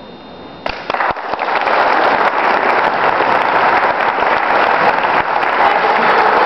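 Audience applauding in the echoey acoustics of a cathedral, starting abruptly less than a second in and quickly building to steady clapping.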